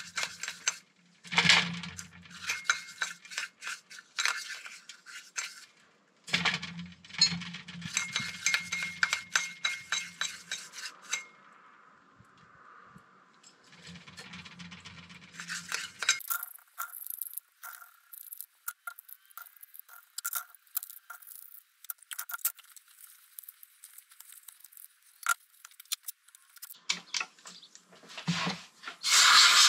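A brush and a small metal brake master cylinder part clinking and scraping against a glass jar and an aluminium tray during cleaning, in irregular bursts of taps. Just before the end, a compressed-air blow gun starts with a loud steady hiss.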